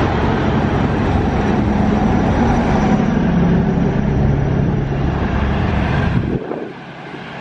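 Kiha 37 and Kiha 30 diesel railcars pulling out and running past close by: a loud, steady engine and running noise with low engine tones. The sound drops suddenly about six seconds in to a much fainter one.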